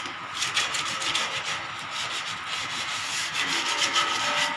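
Fine 120-grit sandpaper rubbed by hand along a welded steel railing tube in quick, irregular back-and-forth strokes, smoothing off weld bumps and flux before priming. The rasping stops abruptly at the very end.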